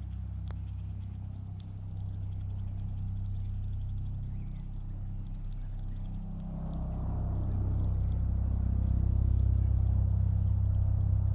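Steady low engine hum that grows louder about halfway through, with faint high chirps over it.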